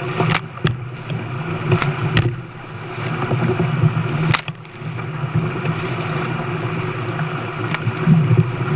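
An engine running steadily with a low hum, with a few sharp clicks and knocks scattered through it.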